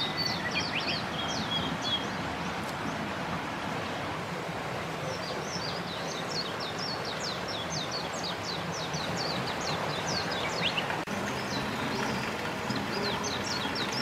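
Steady rush of running water, with a bird singing over it in runs of quick, high, descending chirps.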